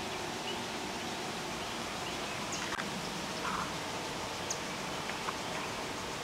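Outdoor ambience: a steady hiss with a few faint, short bird chirps and small ticks, and one sharp click about three seconds in.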